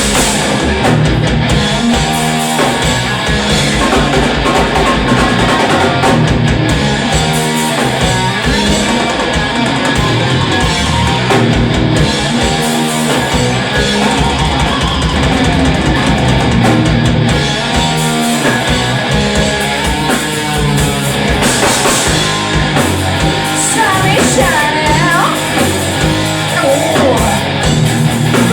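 Rock band playing loudly and live, with electric guitar over a drum kit.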